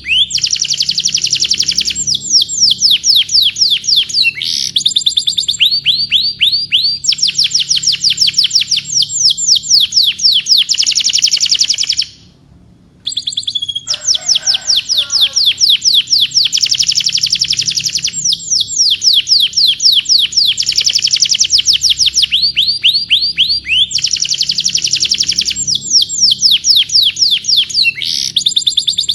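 Domestic canary singing loudly, one long song of fast trills made of rapid downward-sweeping notes, phrase after phrase. The song breaks off for about a second near the middle, then goes on.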